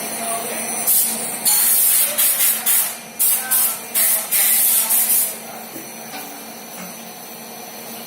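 Repeated short bursts of high-pitched hissing spray, like air jetting from a nozzle: a string of quick blasts, then a longer one that stops about five seconds in, over a steady machine hum.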